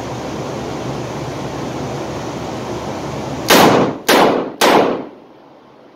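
Three rapid .357 Magnum shots from a stainless double-action revolver, about half a second apart, each with a short echo off the indoor range walls. A steady background hiss runs before the shots.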